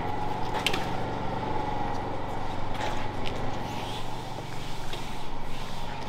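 Steady machine hum with a constant high whine, and a few short knocks over it.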